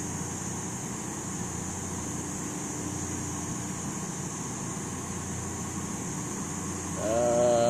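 Steady background noise with a faint low hum. About seven seconds in, a louder held pitched sound with overtones begins.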